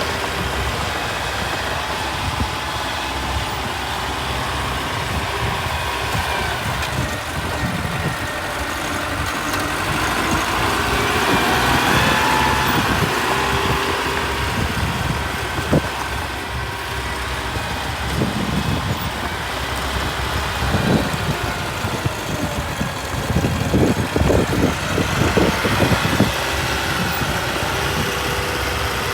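Small Mitsubishi BD2F bulldozer's diesel engine running steadily, getting louder for a couple of seconds about a third of the way in. A sharp knock comes about halfway through, and irregular clanks and thumps follow over the next several seconds as the machine works soil.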